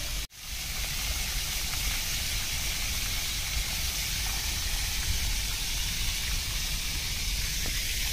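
Water spilling down the tiers of a cascade fountain, a steady rushing splash. The sound cuts out for a moment just after the start.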